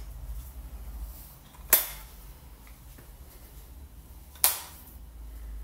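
Two sharp clicks, about two and a half seconds apart, each with a short ringing tail, over a low steady hum.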